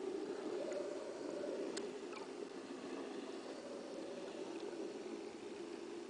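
Steady, muffled underwater rushing noise heard through a submerged camera, with one sharp click a little under two seconds in and a few fainter ticks.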